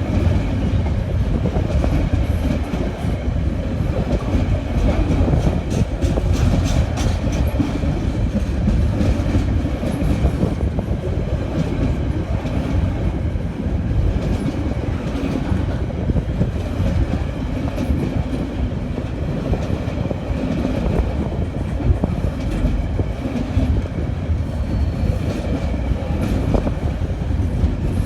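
Freight train hauled by a Class 66 diesel-electric locomotive rolling steadily past, a continuous rumble with the wheels clicking over rail joints.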